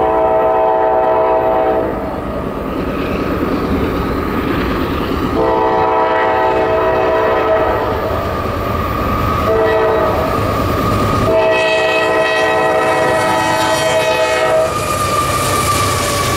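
CSX freight locomotive's multi-note air horn sounding the grade-crossing signal as the train approaches: two long blasts, a short one and a final long one. Near the end the horn stops and the passing locomotives' diesel engines rumble by.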